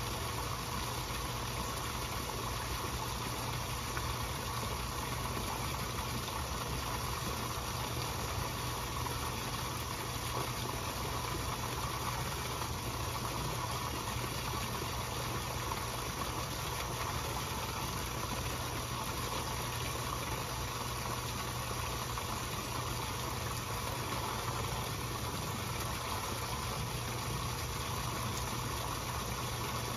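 Pond pump and water circulation running steadily: a low hum under an even rushing hiss.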